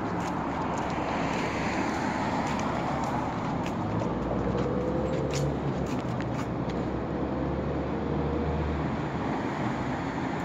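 City street traffic: a taxi and a car drive past close by over steady road noise, with a low engine hum from about four to nine seconds in.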